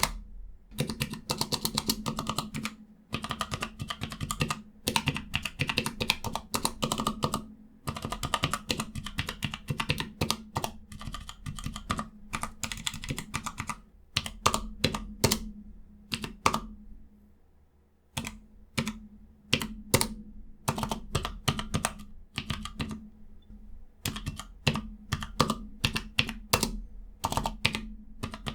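Keys of a Cherry G84-4700 numpad with Cherry ML switches being typed in quick runs of clicks, with short breaks, the longest a little past the middle.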